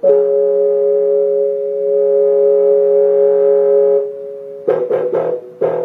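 Electric piano played through a loudspeaker: a plain, organ-like two-note chord held for about four seconds, then a quick run of short notes near the end.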